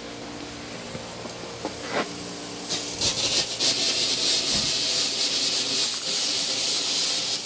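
Pop-up lawn sprinkler heads start hissing about a third of the way in. They spray a mist of water and compressed air as the zone's underground lines are blown out with an air compressor to winterize the system.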